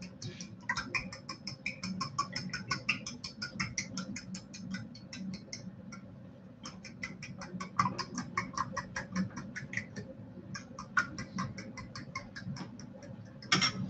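Eggs being beaten with a fork in a bowl: quick, even clinks of the fork against the bowl, about five a second, with two short pauses.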